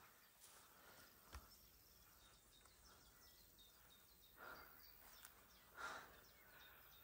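Near silence: faint open-air meadow ambience with a few soft, high chirps.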